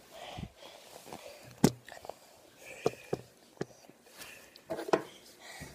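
Scattered handling knocks and clicks, about half a dozen, as a handheld phone is carried and jostled, with breathy puffs and faint vocal sounds between them: a boy breathing hard after eating very hot chips.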